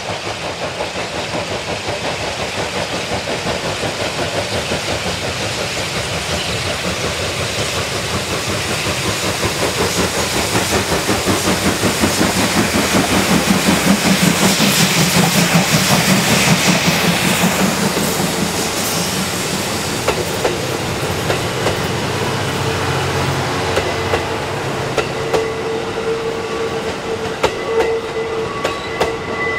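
Steam locomotive D51 200 passing under steam with a rapid beat of exhaust chuffs. The sound swells to its loudest about halfway through and then fades as the coaches roll by, clattering over the rail joints, with a thin wheel squeal near the end.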